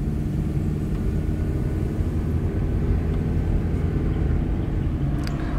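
Car driving along steadily: an even, low engine hum with road rumble.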